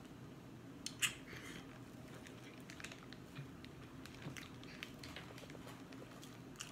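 Close eating sounds: lip smacks and sucking sauce off fingers, with scattered small sharp clicks, the loudest about a second in, over a faint steady hum.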